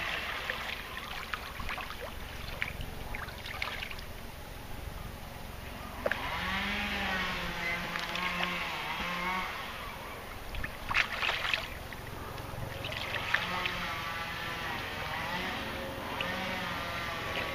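Water sloshing and splashing with wind on the microphone, under the hum of a motorboat engine whose pitch rises and then holds steady about a third of the way in. A few short splashes sound near the middle.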